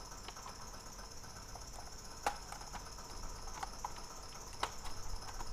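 Small clicks and snaps as the plastic case of an Acer Veriton N281G mini PC is prised open, scattered irregularly, with a sharper click about two seconds in and another near the end, over a faint steady hiss.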